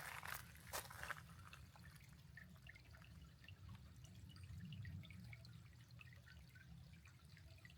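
Near silence: faint outdoor ambience with a low rumble, two or three soft knocks in the first second, then scattered faint ticks like dripping.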